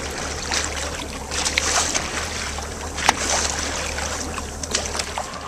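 Fishing boat under way: a steady low engine drone under the rush of wind and water, with a few sharp knocks, the loudest about three seconds in.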